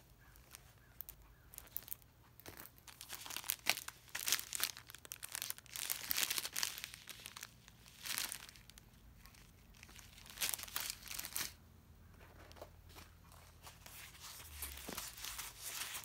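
Clear plastic packaging crinkling in irregular bursts as a diamond painting kit's cellophane-wrapped canvas and strip of sealed bead packets are handled.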